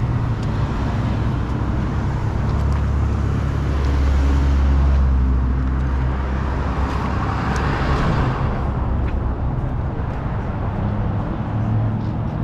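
Road traffic: a steady low engine rumble, with a vehicle passing that swells up and fades away about seven to eight seconds in.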